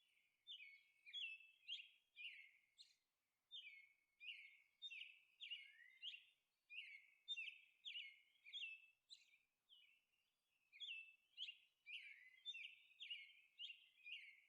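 Faint bird chirping: short high chirps repeated about two a second, with a brief pause about two-thirds through.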